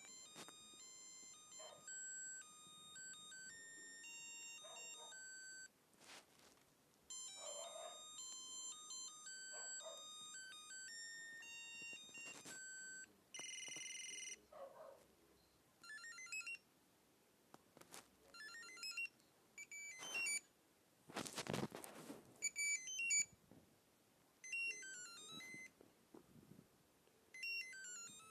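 Mitsubishi G310 mobile phone playing its electronic ringtones: short beeping melodies of stepped notes, several in turn with pauses between, some as quick rising runs of notes. A brief louder noise breaks in about three-quarters of the way through.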